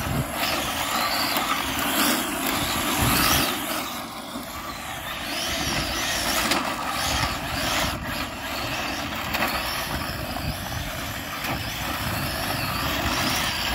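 Arrma Felony 6S brushless electric RC car driving on asphalt. Its motor whine rises and falls again and again as the throttle is worked, over a steady rushing noise.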